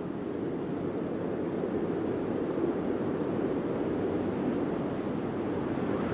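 Steady wind blowing over mountains, a low, even rushing noise.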